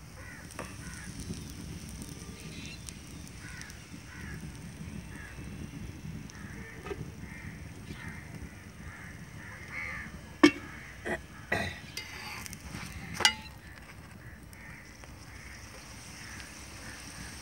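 A paratha cooking on a large iron tawa, with a steady low background and four sharp metal clacks between about ten and thirteen seconds in: metal tongs and a steel ghee container knocking against the tawa.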